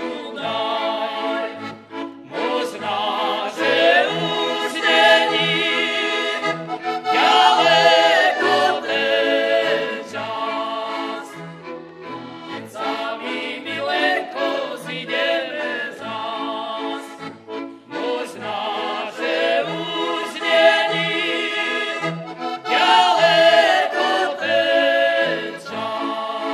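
Folk band of two violins, an accordion and a cello playing a Slovak folk song, with the musicians singing along; the accordion is prominent over a pulsing bass line.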